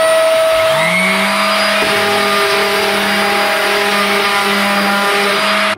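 Electric power sander running at speed with a steady whine over a loud hiss, joined about half a second in by a lower motor tone spinning up. The sound cuts off suddenly near the end.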